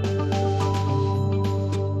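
Background music: a soft instrumental track with a steady bass note, sustained tones and plucked guitar.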